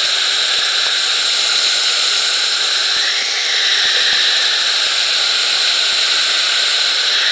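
Heavy hailstorm: hail and rain pouring down in a loud, dense, steady hiss.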